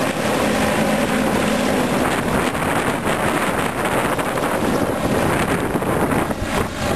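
Loud engine noise with wind buffeting the microphone; a steady engine tone fades out about two seconds in.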